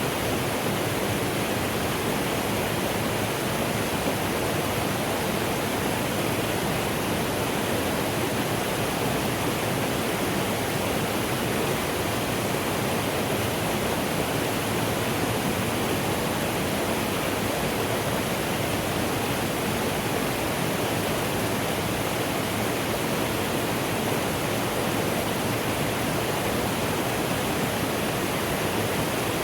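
Mountain stream flowing steadily, a continuous rush of water.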